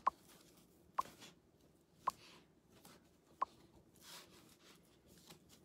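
Faint rustling of jute rope being wrapped around a grapevine wreath form, with four sharp clicks spaced about a second apart.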